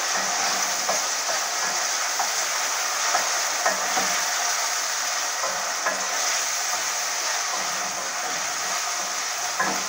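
Onions and sweet peppers sizzling as they sauté in a metal pot, being stirred with a wooden spoon, with light irregular taps of the spoon against the pot.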